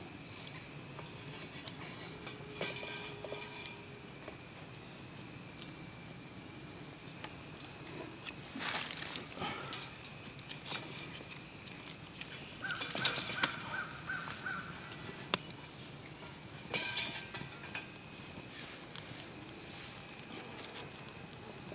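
Insects chirring steadily in the woods, a high pulsing drone. Short rustles and clicks of sticks being handled and set at a small wood-burning stove come a few times, the loudest about halfway through.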